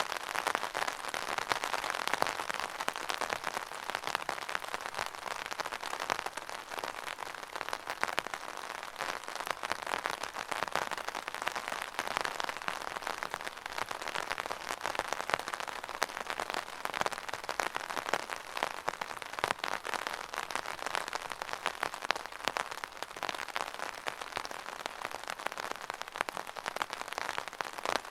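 Steady rain falling and pattering on a surface, a dense even patter of many small drops.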